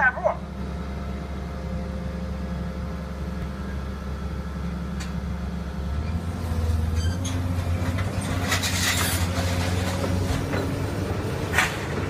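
Hydraulic scrap-metal baler's power unit running with a steady low hum. About halfway through its pitch rises as it takes load, followed by scrap metal rattling and clanking and a sharp knock near the end.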